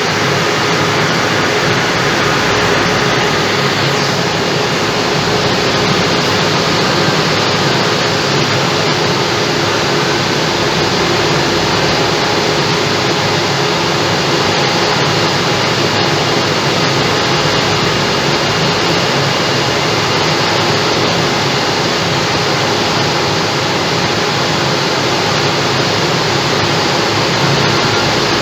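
Dump truck's engine running steadily, a dense even noise that does not change.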